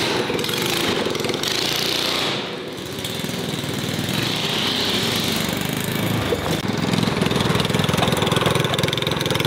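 Small single-cylinder gasoline engines running, the go-kart-type engine of a homemade monster truck among them, as the vehicles drive; the sound eases briefly about two and a half seconds in.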